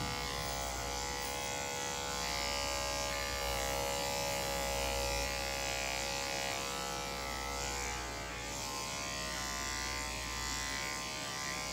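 Electric dog grooming clipper fitted with a #4 blade running with a steady buzz as it clips a West Highland White Terrier's coat under the neck, against the grain.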